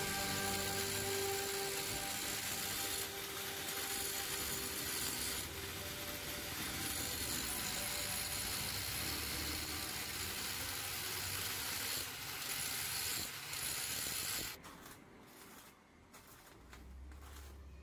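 Handheld angle grinder grinding steel on the front of a tractor, throwing sparks: a steady hissing grind with the motor's whine under it. It stops near the end, leaving a few light knocks.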